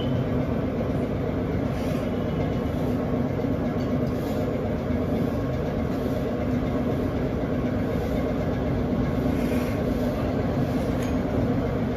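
A steady, even mechanical rumble with a faint low hum and no distinct knocks or clicks.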